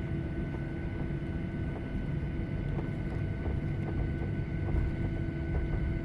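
Airplane noise after landing: a steady low rumble with several steady whining tones above it, and a few faint clicks or rattles.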